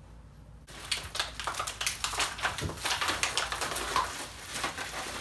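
Packaging crinkling and rustling as gaming-chair parts are pulled out of their box, starting about a second in: a dense run of small crackles and clicks.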